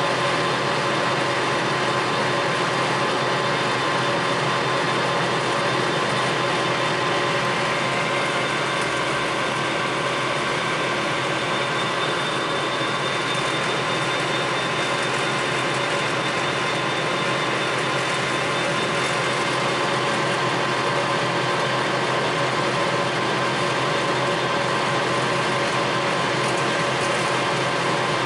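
Clausing Colchester Master 2500 engine lathe running under power, a steady gear whine with several even tones that holds unchanged throughout.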